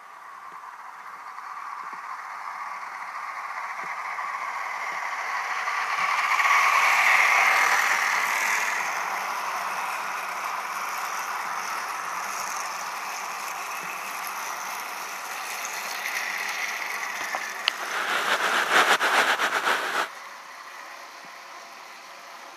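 Motorized toy train running on plastic track, its small motor and wheels whirring, louder as it comes near and passes close by. Near the end a rattling clatter lasts about two seconds and cuts off suddenly.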